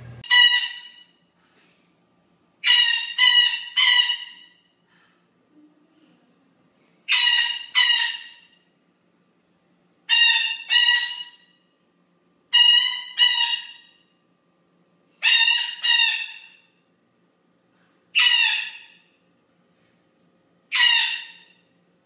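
Blue-winged Amazon parrot calling: short, harsh squawks, one to three at a time, repeated every two to three seconds. This distinctive squawk is one of the traits that mark it as a species of its own, apart from the White-fronted parrot.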